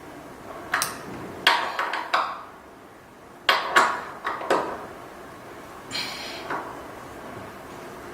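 Metal wrench clinking and knocking against a bike's pedal and crank as they are tightened: about seven sharp, irregular metallic knocks, then a softer scrape about six seconds in.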